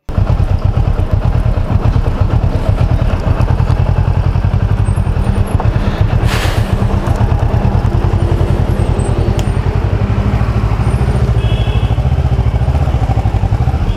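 Kawasaki Ninja motorcycle engine idling steadily, a rapid, even low exhaust pulse, with a brief hiss about six seconds in.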